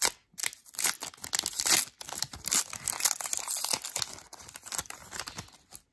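A foil-lined trading card pack wrapper being torn open by hand: crinkling and ripping of the wrapper, densest and loudest over the first few seconds and easing off near the end.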